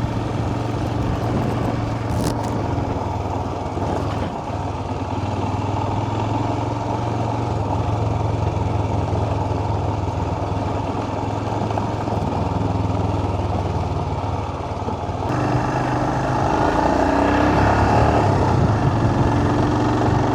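Royal Enfield Himalayan's single-cylinder engine running steadily as the motorcycle rides a dirt road; about fifteen seconds in the sound grows louder.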